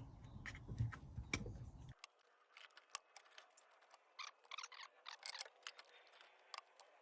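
Faint, irregular clicks and light taps of hand work on the engine as new ignition (HT) leads are fitted.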